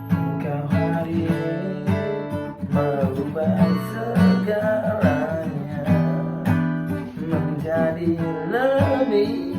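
Acoustic guitar strummed in a steady rhythm of chords, with a wordless vocal melody wavering over it in places.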